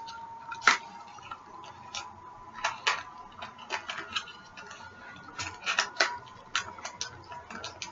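Light, irregular clicks and taps of small packaged items and packaging being handled, over a faint steady tone.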